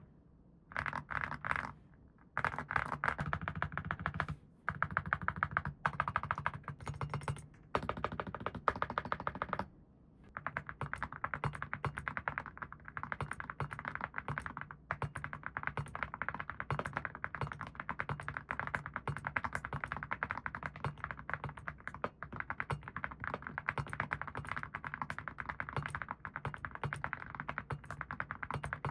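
Typing on a mechanical keyboard fitted with awekeys full-metal keycaps: rapid keystrokes in a few short runs with brief pauses over the first ten seconds, then steady continuous typing.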